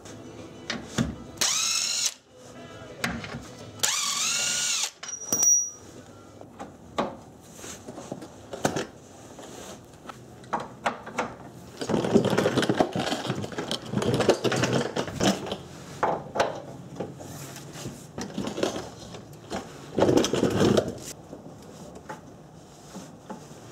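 Power tool spinning bolts loose in short bursts. Two quick runs near the start each give a rising whine, and longer stretches of noisy tool work follow around the middle and near the end.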